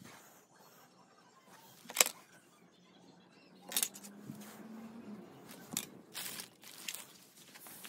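Handling noises from chrome scooter spare parts: clinks and knocks of metal pieces being picked up and set down, and rustling of their plastic wrapping. One sharp click about two seconds in is the loudest.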